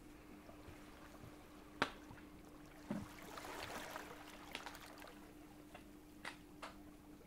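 Kitchen food-preparation handling sounds: a sharp knock, then a short rush of poured or running liquid, and a few light clicks, over a faint steady hum.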